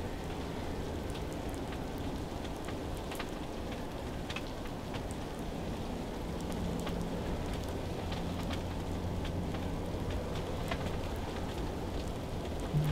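Falling snow pattering on a hunting ground blind during a snowstorm: a steady hiss with scattered light ticks.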